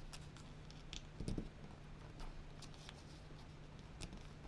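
Faint rustling and light clicks of origami paper being pressed and tucked in by fingers, over a low steady hum, with one short low sound a little over a second in.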